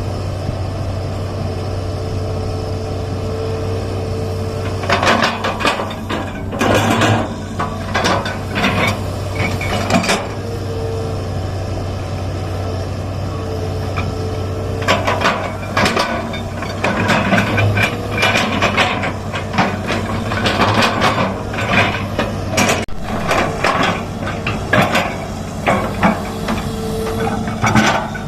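Excavator's diesel engine running steadily, with repeated bursts of knocking, clanking and scraping as the bucket works the ditch, the first about five seconds in and more from about halfway on.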